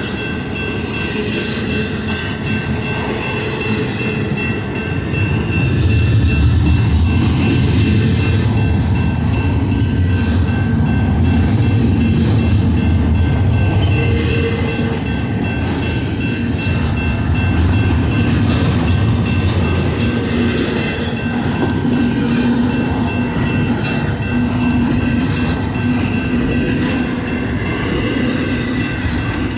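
CSX intermodal freight train rolling by: a steady rumble and clatter of wheels on rail that grows louder about six seconds in, with a faint steady high-pitched ring over it.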